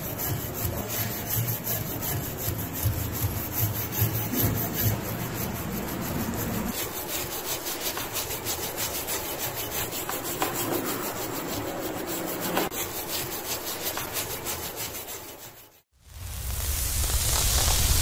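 Hand wire brush scrubbing wet, rust-sludged steel of a hatchet head: fast scratchy back-and-forth strokes. Near the end it cuts off and a hiss starts, growing louder.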